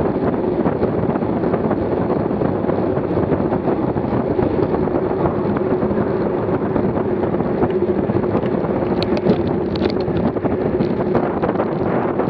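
Steady rush of wind over a bike-mounted camera's microphone while riding a road bike at about 24 mph, with a faint steady hum underneath. A few light ticks come about nine to ten seconds in.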